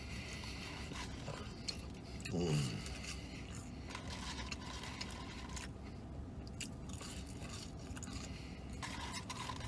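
A man chewing Burger King french fries close to the microphone: small crunches, mouth sounds and clicks over a steady low hum inside the vehicle cabin, with a short hum from his voice about two and a half seconds in.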